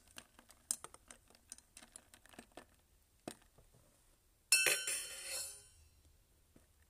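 Bar spoon stirring ice in a glass: quick light clinks of ice and spoon against the glass for about two and a half seconds. About four and a half seconds in, one louder metallic clink rings briefly and fades as the spoon is set down into a metal tin.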